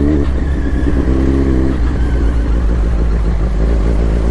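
Kawasaki Z900's inline-four engine with an Akrapovic exhaust, running while the bike is ridden: the engine note drops off right at the start as the throttle eases, and picks up again near the end.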